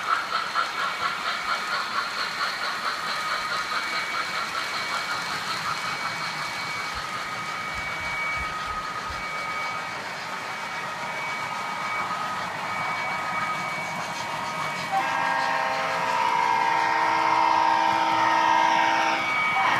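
O-gauge model trains running on a layout, with a rhythmic pulsing running sound that slows and fades over the first few seconds. About fifteen seconds in, a loud whistle from a model train's sound system blows a chord of several notes for about four seconds.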